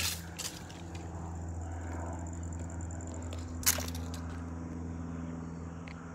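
Steady low drone of a small propeller airplane flying overhead. Near the start there are a few crunching footsteps on dry leaves and concrete, and a sharp click comes a bit past halfway.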